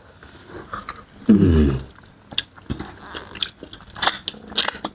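Close-miked eating of starch fufu and banga soup with meat: chewing and biting with many sharp wet clicks and crackles. A short, low vocal sound comes about a second and a half in.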